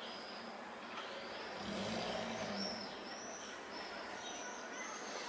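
Outdoor ambience through an open window: a steady hum of distant traffic with small birds chirping high and repeatedly, and a louder passing rumble about two seconds in.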